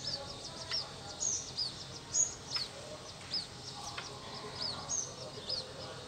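White-breasted waterhen chick peeping: a steady run of short, high calls that slur downward, about two a second.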